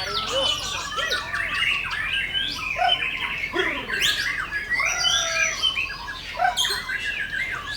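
Several white-rumped shamas (murai batu) singing at once, their songs overlapping: loud gliding whistles, rapid trills and harsh chattering phrases with no pause.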